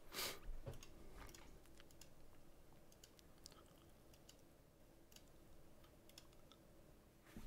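Near silence: quiet room tone with faint scattered clicks, and a short soft rush of noise just after the start.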